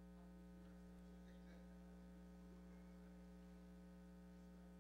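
Near silence with a steady electrical mains hum: a low, unchanging buzz with several even overtones.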